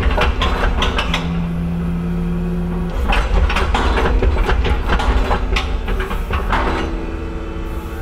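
Compact track loader running as it drives about carrying a steel plate on a vacuum lifting attachment, its engine rumbling steadily under repeated clanks and knocks as the machine jolts. A steady hum comes in for about two seconds, about a second in.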